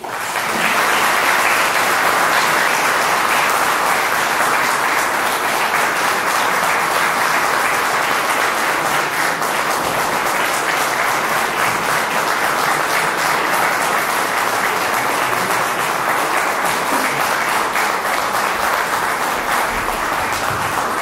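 Audience applauding, a dense steady clapping that starts suddenly and holds on.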